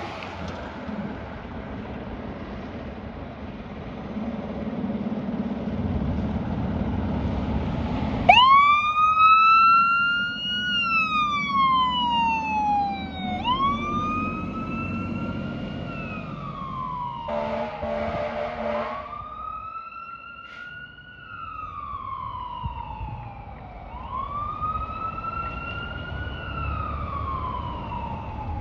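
Fire apparatus siren wailing, rising and falling in slow cycles about every five seconds, starting about a third of the way in over the low rumble of heavy engines. About two thirds of the way through, an air horn blasts for a second or two.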